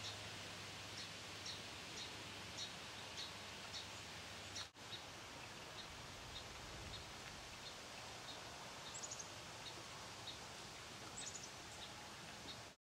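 Bird chirping: short high chirps repeated about every half second, with two quick runs of three or four falling notes in the second half.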